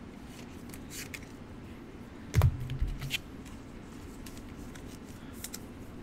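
Trading cards and packs being handled, with scattered soft clicks and rustles. A dull thump about two and a half seconds in is the loudest sound.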